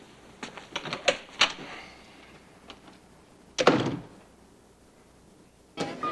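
A door being handled: a few quick clicks and knocks, then a door shutting with a heavy thud about three and a half seconds in.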